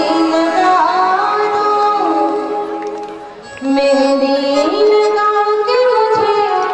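Devotional song: a voice sings a gliding melody over sustained instrumental accompaniment. The music drops briefly about three and a half seconds in, then picks up again.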